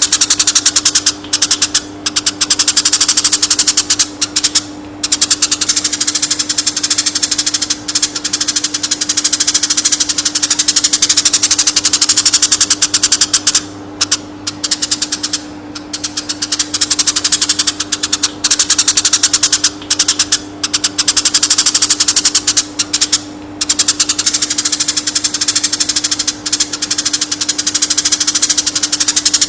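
Eurasian tree sparrow chirping in a fast, dense, unbroken stream of rapid chirps, with a few short breaks, over a steady low hum.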